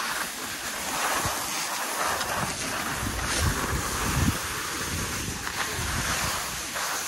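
Skis hissing and scraping over groomed snow during a downhill run, with wind buffeting the microphone from about two seconds in.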